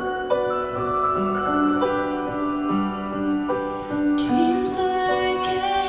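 A slow song with piano, played back loud through home-built transmission-line speaker towers with Visaton woofers, as heard in the room. Brighter, hissy high sounds join in about four seconds in.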